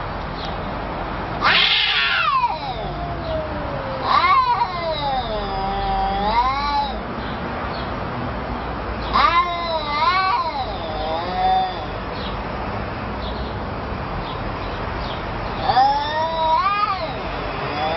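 A domestic cat caterwauling: four long, wavering yowls that rise and fall in pitch, with short pauses between them.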